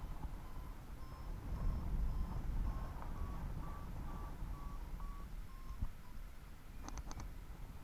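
Paragliding variometer beeping its climb tone, short beeps about two to three a second that rise a little in pitch, then fall and stop about six seconds in, the sign of climbing in a thermal that then weakens. Low wind rumble on the microphone underneath, and a few sharp clicks near the end.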